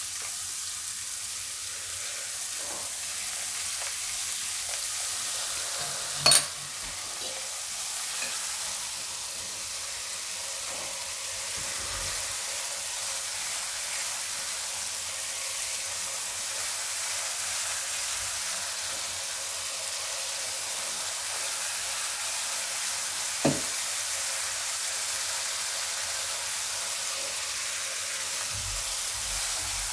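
Spice masala sizzling steadily in hot oil in a non-stick kadai over a low gas flame while a silicone spatula stirs it, the masala being cooked through in the oil. A sharp knock sounds about six seconds in and a lighter one later.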